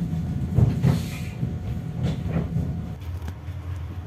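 RA2 diesel railbus heard from inside the car as it comes into a station: a steady low engine and running hum with knocks and rattles from the car body. The running note drops about three seconds in.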